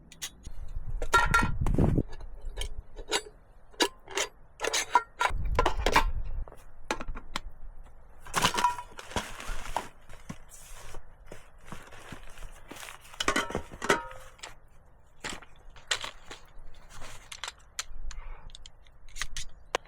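Camp cooking gear and bags being handled and packed away: many irregular clicks, crinkles and rustles, with two spells of low rumble near the start.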